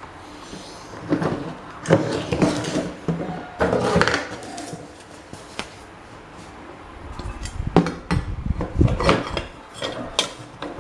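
Irregular metallic clinks and knocks of small parts being handled and set down, in two busy spells with a quieter pause between.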